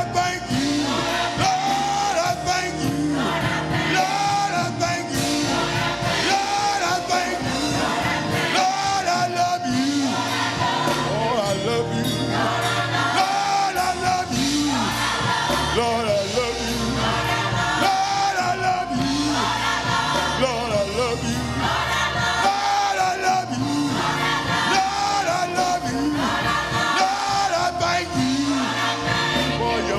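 Gospel praise music: choir and congregation singing short phrases that repeat about every two seconds, over a steady instrumental accompaniment.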